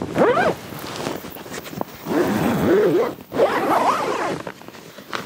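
A zipper being pulled in about three long raspy strokes, its pitch wavering as the pull speeds up and slows.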